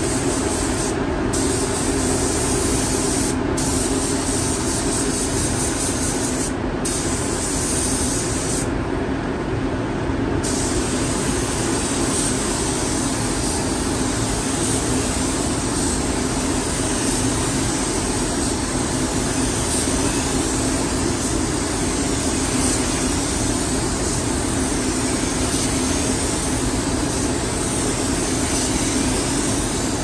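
Gravity-feed automotive paint spray gun hissing steadily as it sprays red base coat, over a steady low hum. The hiss cuts out briefly four times in the first ten seconds, the last gap lasting over a second, as the trigger is let off between passes.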